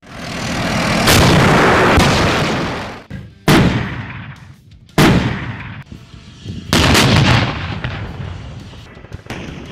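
A swelling rumble for about three seconds, then three sudden loud booms about a second and a half apart, each dying away over a second.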